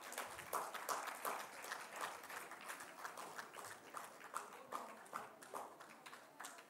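Audience clapping, faint and gradually thinning out and fading.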